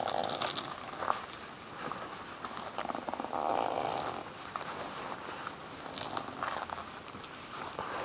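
Rubber-gloved hand rubbing and squeezing a pummelo in its plastic mesh bag: rustling and scraping, with a longer rub about three and a half seconds in and scattered small clicks.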